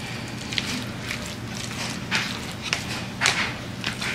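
A utensil scraping and knocking against a mixing bowl in short, irregular strokes as a thick chicken and cream-cheese filling is stirred, over a steady low hum.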